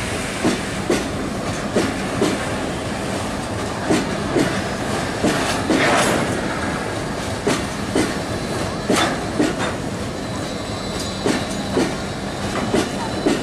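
Oil tank wagons of a freight train rolling past, their wheels clacking over rail joints in pairs of knocks every second or so over a steady rumble, with a louder swell about halfway through.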